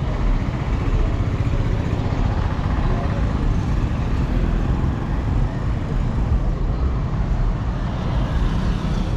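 Road traffic on a busy street: a steady rumble of passing vehicles.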